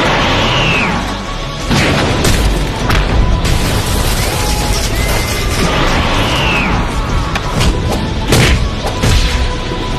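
Added fight sound effects: a loud boom at the start, then several sharp hits and crashes, a second boom with a falling sweep near the middle, and two more hits near the end, over background music.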